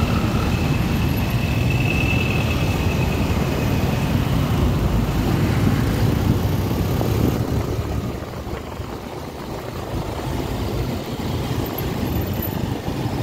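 Road traffic noise heard from a motorcycle moving slowly through jammed traffic: a steady low engine rumble that eases off for a couple of seconds about eight seconds in.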